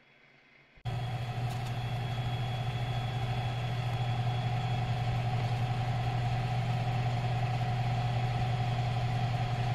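An electric blower running steadily, starting suddenly about a second in, with a strong low hum and a fainter steady whine above it.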